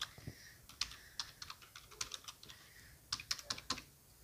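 Typing on a computer keyboard: irregular key clicks, with quick runs of keystrokes about two and three seconds in.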